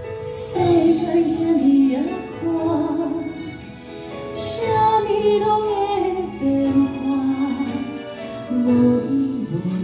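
A woman singing a song into a microphone over instrumental accompaniment.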